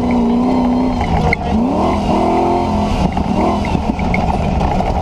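Land Rover's 4.6-litre V8 engine revving hard under acceleration, its pitch climbing, dropping about a second and a half in and climbing again, then stepping once more past three seconds, as at gear changes. A heavy rumble runs underneath throughout.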